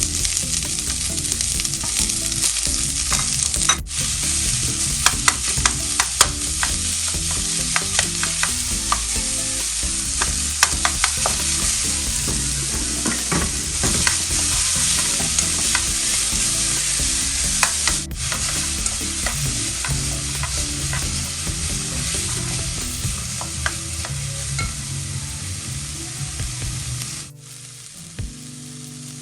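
Onion and garlic sizzling as they fry in hot oil in a pan, with a spoon stirring and knocking against the pan in quick irregular clicks. The sizzling cuts off suddenly near the end.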